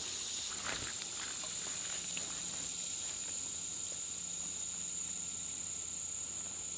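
Steady high-pitched summer insect chorus, with a few faint clicks in the first second.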